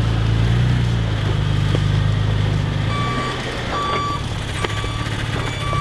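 A vehicle engine runs steadily and eases off about three seconds in, as a reversing beeper starts up, sounding a short high beep about once a second while the vehicle backs up.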